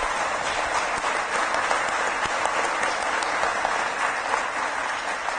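Audience applauding steadily: a dense, even clapping of many hands.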